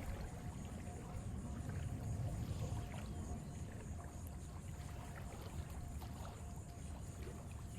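Ocean waves washing in as a low, steady rumble that swells a little around two seconds in.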